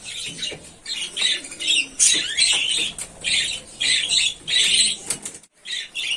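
A flock of budgerigars calling: a continuous run of short, harsh chirps, two or three a second, with a brief pause near the end.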